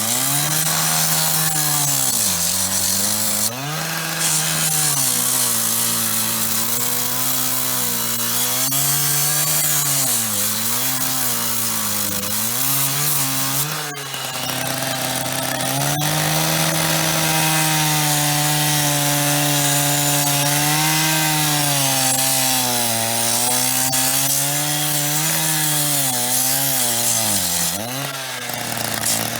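Power cutting tool cutting into a payphone's metal face. Its motor pitch sags under load and recovers again and again beneath a bright hiss from the cut, with three brief let-ups.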